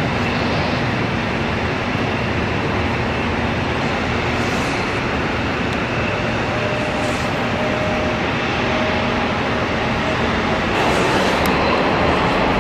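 Jet engines of F-15 fighters taxiing, a steady whining rush that grows louder and brighter about eleven seconds in.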